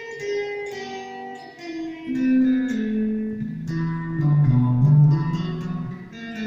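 Revelation RJT60 electric guitar played through a Vox Tonelab modelling processor: a run of picked, ringing notes that works down from the middle register into the low strings, loudest past the middle.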